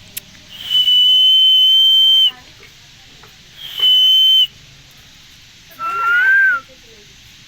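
Indian green parrot (rose-ringed parakeet) whistling: two loud, steady, high whistles, the first long and the second shorter, then a brief warbling call that rises and falls near the end.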